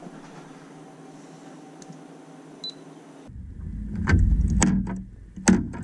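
Faint steady hiss of room tone with a couple of tiny ticks. About three seconds in it cuts suddenly to a much louder passage: a deep rumble under a steady low hum, with sharp clicks or plucks recurring roughly once or twice a second.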